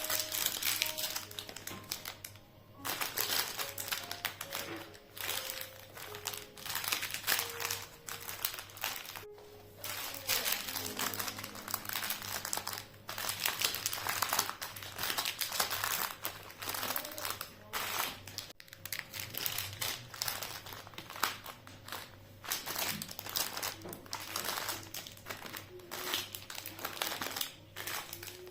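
Crumpling and crinkling of a thin material being handled, in irregular spells with short breaks, over soft background music.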